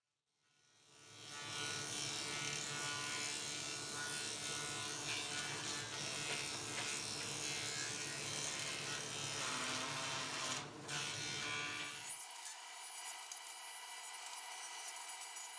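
Electric workshop machinery running with a steady motor buzz, fading in over the first second or so. About twelve seconds in the deep part of the sound drops away, leaving a thinner steady hum.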